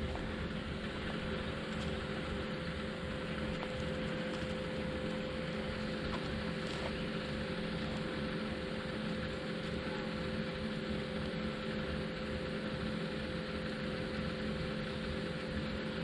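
Steady background hum and hiss with a few constant low tones, unchanging throughout; no speech.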